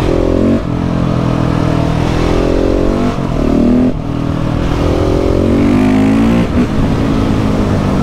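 KTM 690 SMC R's 690 cc single-cylinder engine pulling hard in third gear. Its pitch rises and drops back four times as the throttle is opened and shut, then runs steadier near the end.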